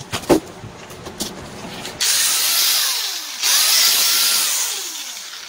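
A 4-inch electric angle grinder, freshly rebuilt with a new armature, stator, armature bearings and carbon brushes, switched on about two seconds in and run in two short bursts; the second run winds down toward the end. A few handling knocks come before it starts.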